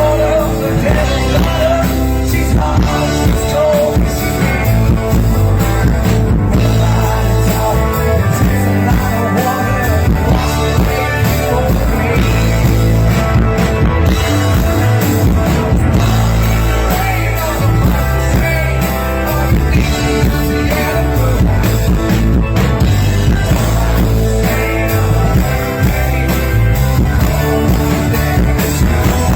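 Live rock band playing an instrumental stretch of the song, a steady bass and drum groove under a wavering lead melody line, without transcribed vocals.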